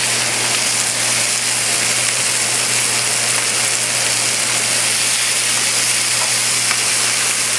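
Chicken pieces with sliced onions and celery sizzling steadily in olive oil in a pan over a high flame, with a steady low hum underneath.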